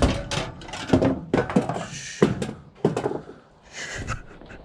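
Irregular knocks and clunks of scrap metal being handled, about six in the few seconds, with a couple of short scraping hisses between them.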